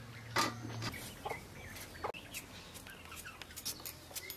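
Chickens clucking, a few short calls scattered through, with a low hum that stops about a second in.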